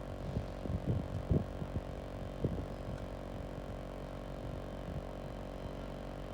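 A train's steady low engine hum, with a few dull low thumps in the first few seconds.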